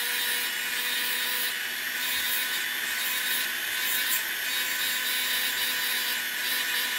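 Rotary handpiece spinning a sanding disc against a metal ring: a steady motor whine with the hiss of the disc grinding the metal.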